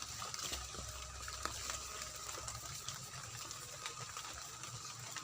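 Rain falling steadily, with scattered drips ticking.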